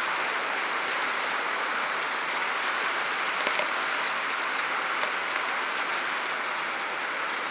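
Heavy rain from a severe hail-producing thunderstorm pouring down steadily, with a couple of faint sharp ticks.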